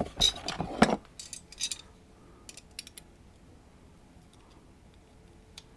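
Small metal clicks and scrapes as a tool works at the retaining clip on a lock cylinder, busiest in the first second or so, then a few light ticks a couple of seconds in.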